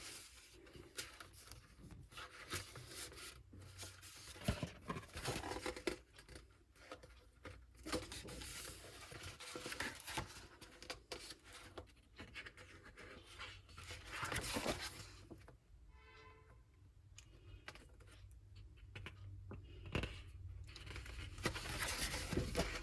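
Paper rustling and scraping as the pages of a photo book are handled and turned: irregular soft rustles throughout, the loudest about fourteen seconds in.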